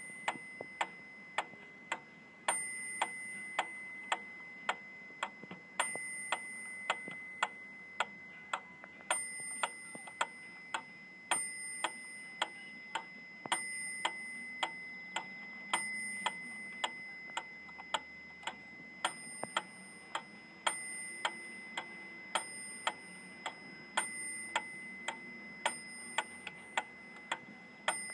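Wittner mechanical pyramid metronome with bell ticking at an even beat of about two ticks a second, with a small bell ding on the first beat of each bar, every few ticks.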